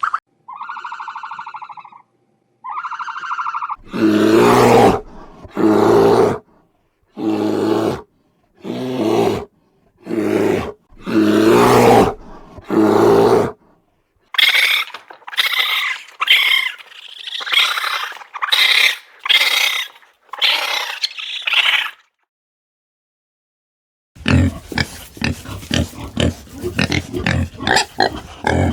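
Farm animal calls in several separate clips: first two short calls, then a series of about seven loud, deep calls, then a run of quicker, higher-pitched calls. After a break comes a dense stretch of short, low grunting that sounds like pigs.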